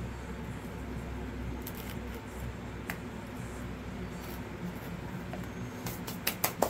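Craft supplies being handled on a work table: a faint click partway through, then a quick cluster of sharp clicks and taps near the end, over a steady low room hum.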